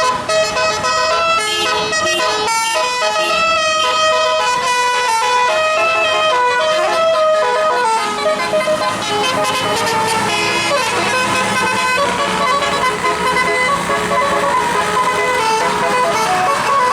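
Bus 'telolet' multi-tone musical air horn playing a tune of quick stepped notes. About halfway through, the notes become less distinct under a rushing noise.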